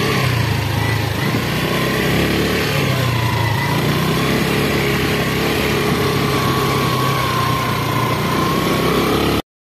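Small petrol scooter engine running steadily while riding over a dirt field, its pitch wavering a little with the throttle; it stops abruptly near the end.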